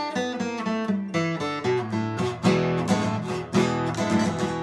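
Acoustic guitar playing an intro: separate picked notes in quick succession at first, then fuller, louder strummed chords from about halfway through.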